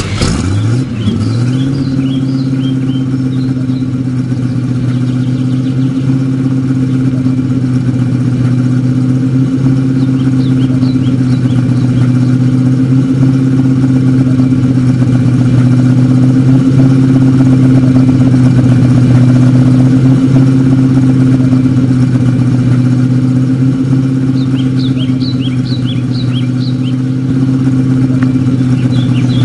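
Car engine running at a steady fast idle. Its note climbs in pitch over the first second, then holds flat and loud with no revving.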